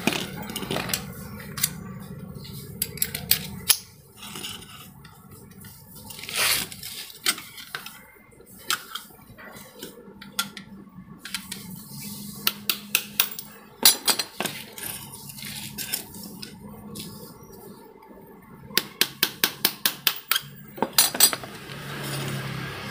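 Metal clinks, taps and scrapes of hand tools on a Honda Vario scooter's CVT centrifugal clutch shoe assembly as it is taken apart, with a quick run of about ten sharp clicks near the end.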